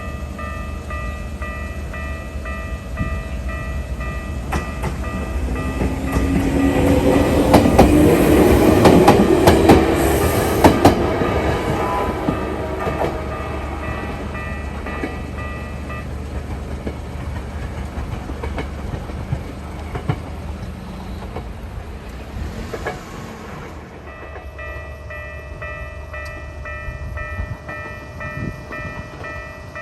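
Level-crossing alarm in the slow Keikyu style, sounding its steady electronic warning tone while a former Tokyu electric train passes. The train is loudest about seven to eleven seconds in, with wheels clacking over the rail joints. The alarm tone stops about sixteen seconds in and is heard again from about twenty-four seconds.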